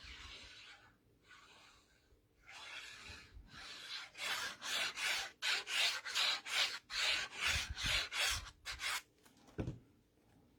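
Paper rubbed by hand: a cardstock panel pressed down onto a card base with quick, repeated rubbing strokes, about two a second in the busiest stretch, followed by a soft knock near the end.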